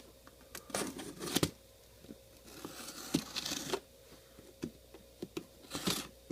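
Cardboard shipping box being opened by hand: packing tape tearing and packaging rustling in a few short bursts.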